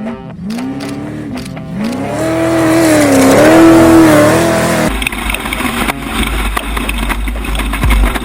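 Off-road race vehicle engine revving, its pitch rising and falling several times. About five seconds in it cuts abruptly to a low, rough rumbling with rattles.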